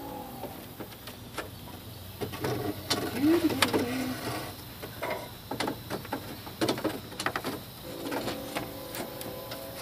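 Irregular light knocks, clicks and scraping of a replacement aluminium AC condenser being slid down into place in front of the radiator, its frame and fins bumping the radiator and core support. A couple of brief squeaky pitched tones come about three seconds in and again near the end.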